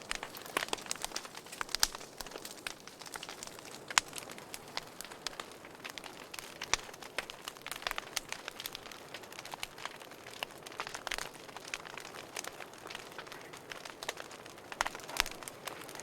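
Wood fire crackling in a fireplace: irregular sharp snaps and pops, several a second, over a soft steady hiss.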